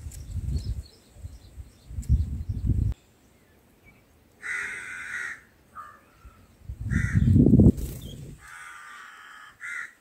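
Harsh, cawing bird calls, five in the second half, each under a second long, over low rumbling noise that is loudest about seven seconds in.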